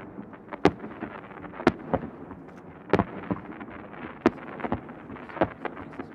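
Aerial firework shells bursting: five sharp bangs about a second apart, with smaller pops between, over a steady crackle.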